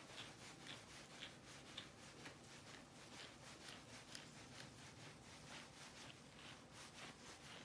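Faint, quick strokes of a grooming brush through a Standard Poodle's fur, about two to three short strokes a second.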